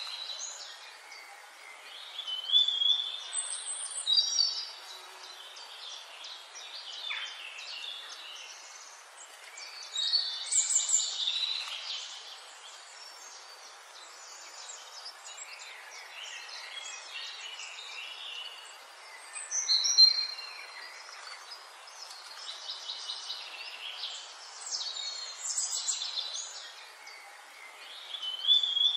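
Small birds chirping and singing in short high phrases every few seconds, over a steady hiss of outdoor background noise.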